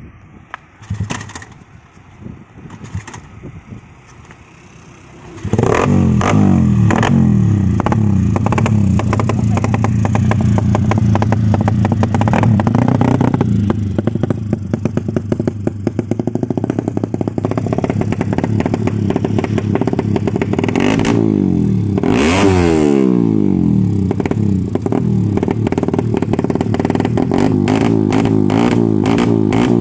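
Suzuki Satria FU 150's single-cylinder four-stroke engine, with a ported head and an RMC aftermarket exhaust, starting about five seconds in after a few clicks, then running loud and steady. It is revved briefly about two-thirds of the way through.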